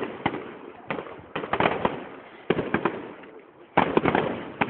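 Fireworks display: aerial shells going off in quick volleys of sharp bangs and crackling, a new volley about every second, the loudest near the end.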